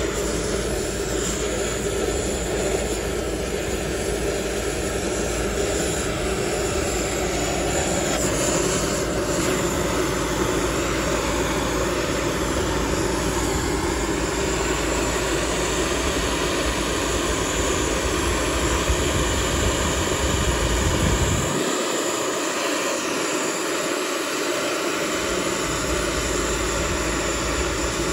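Steady rushing noise of a handheld nozzle tool jetting at sawdust charcoal briquettes to light them. The low rumble drops away for a few seconds about three-quarters of the way through.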